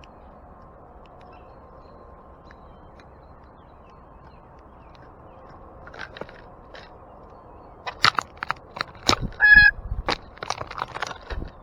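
Birds at a backyard seed feeder: a run of sharp pecking clicks and knocks, sparse at first and dense over the last few seconds, with one short honking call in the middle of it.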